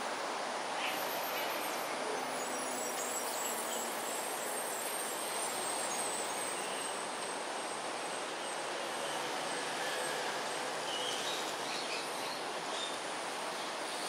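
Steady outdoor background noise, an even hiss with no clear single source, with a few faint bird chirps near the end.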